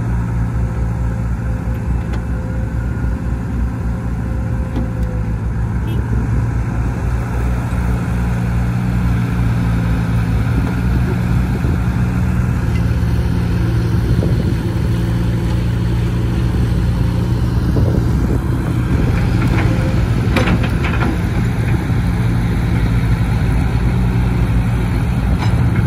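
Crawler excavator's diesel engine running steadily as the machine works, getting a little louder after the first several seconds. A few knocks come about three-quarters of the way through.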